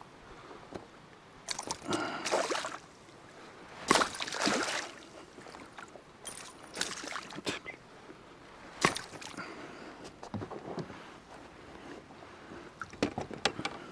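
Water sloshing and splashing against a boat, with handling noises, in several short irregular bursts and a sharp knock about nine seconds in.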